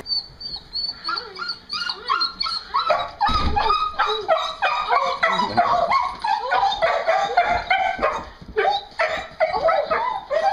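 A beagle-type hound whining and yipping over and over in quick, high cries that rise and fall, the sound of a dog excitedly greeting its owner.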